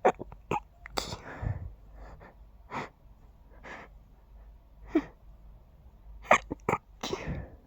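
A person stifling sneezes: a string of short, held-back sneezes, several in quick succession near the end, with breaths in between.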